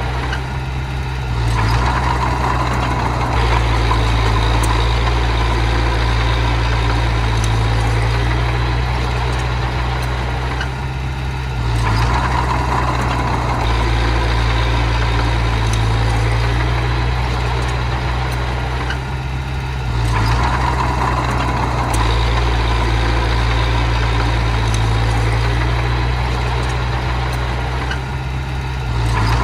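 Bulldozer engine running steadily, swelling and easing in a cycle that repeats about every eight to nine seconds.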